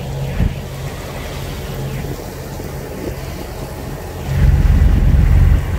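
Sailing yacht's inboard diesel engine running steadily, motoring in a flat calm, heard as a low, even hum. About four seconds in, a loud low wind rumble on the microphone rises over it.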